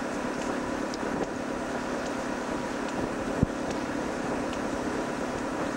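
Wind buffeting the microphone on the deck of a steel schooner under way, over a steady hum, with one sharp knock about three and a half seconds in.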